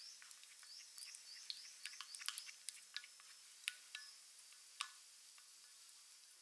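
Faint, scattered clicks and ticks of a wooden spatula knocking and scraping against a glass measuring jug as butter is stirred into thick chocolate ganache. Short high chirps repeat in the background.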